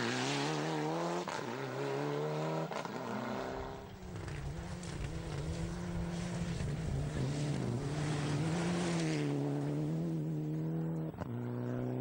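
Mitsubishi Lancer Evolution IX rally car's turbocharged four-cylinder engine at speed on a stage, revving up and dropping back again and again through gear changes.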